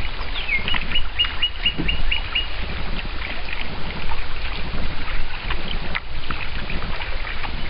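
A bird calls a quick series of about eight short, high, evenly spaced notes, roughly five a second, in the first couple of seconds. The calls sit over a steady rushing noise of wind and water, with scattered light knocks.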